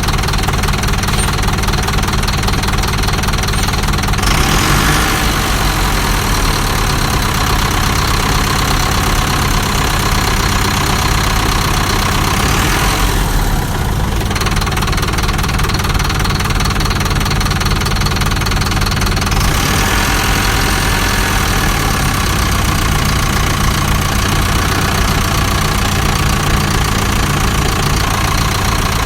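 An engine running steadily at idle. A higher hiss comes in about four seconds in, drops out around fourteen seconds, and returns around nineteen seconds.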